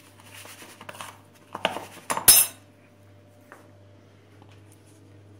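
Metal spoon scraping and stirring in a plastic bowl of semolina as dough fingers are rolled in it, then clattering against the bowl twice, the second knock sharp and loudest about two seconds in.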